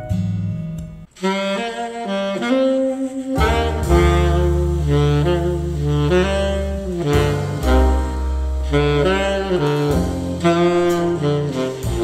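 Jazz music: a saxophone plays a melody over low bass notes. It starts after a short gap about a second in, and the bass comes in a couple of seconds later.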